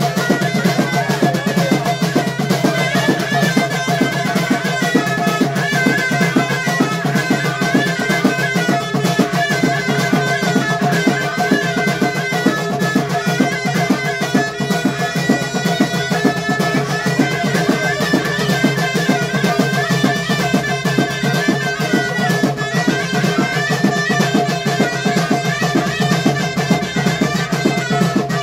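Moroccan Gharb hit folk music: bendir frame drums and long clay goblet drums beating a fast, steady rhythm under a high melody that holds notes and steps between them.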